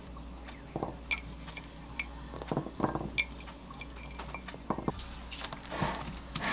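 Light, ringing clinks of a small glass jar and soft taps on a ceramic plate as blueberries are set around the pancakes, with a softer rustle near the end.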